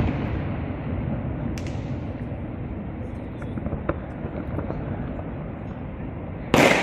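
Aerial fireworks display: a bang fading at the start, a sharp crack about a second and a half in, and a loud burst of explosions near the end, over a steady crowd murmur.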